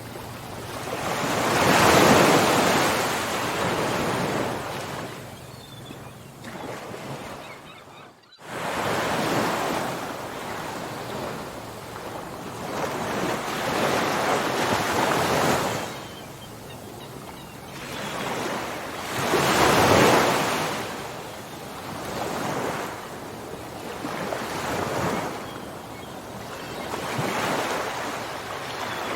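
Ocean waves breaking and washing on a shore, swelling and ebbing in several surges, the strongest about two and twenty seconds in. About eight seconds in there is a brief gap.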